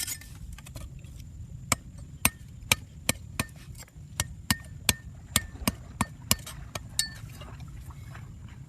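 A series of about fifteen sharp knocks or taps, irregularly spaced at two or three a second, some with a brief ringing note, over a steady low rumble.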